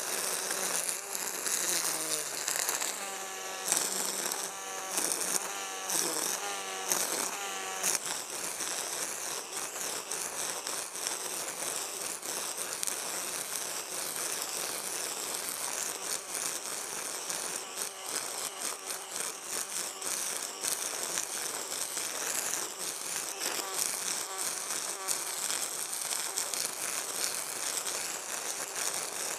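EGO Power+ cordless brush cutter with a line trimmer head, running and cutting thick grass. Its motor whine wavers up and down in pitch for the first several seconds, then settles into a steady high hiss of the spinning line through grass.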